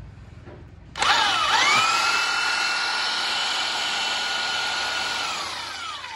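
Large electric impact wrench with a 1-inch square drive (100 V, 1140 W) switched on about a second in. Its motor whines quickly up to speed and runs free without load, with no hammering, then is released near the end and the whine falls as it spins down.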